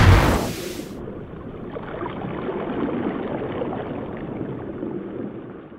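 Music fading out, then the rushing, rumbling noise of a logo-sting sound effect that swells and dies away over a few seconds.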